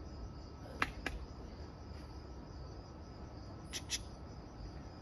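Crickets chirping steadily in a high, even trill, with a few short sharp clicks: two about a second in and two close together near four seconds.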